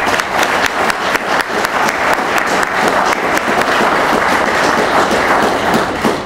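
Audience applauding: a room full of people clapping steadily, which dies away near the end.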